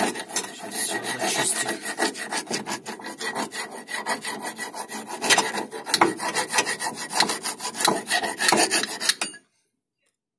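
Round file rasping back and forth in the rusted guide-pin bore of a Volkswagen Golf Mk2 brake caliper, scraping out rust. Quick, repeated strokes that stop suddenly about nine seconds in.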